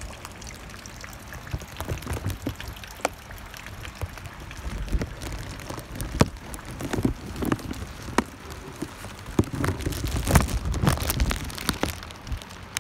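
Rain falling, with many sharp, irregular taps of single drops striking close by. Low rumbling swells come and go through it a few times.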